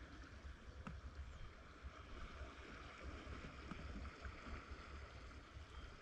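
Faint steady rush of flowing river water, under a low uneven rumble, with a faint click about a second in.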